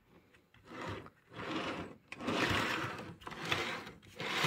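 An unpowered model-train locomotive, a lighted dummy with no motor, pushed back and forth by hand so its wheels roll freely along the rails. It makes four or five short stretches of rolling noise with no motor hum.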